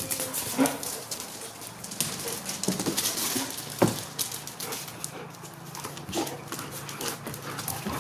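Chinook dogs running and playing: a rapid patter of paw and claw ticks and scuffles, with a few brief dog whines.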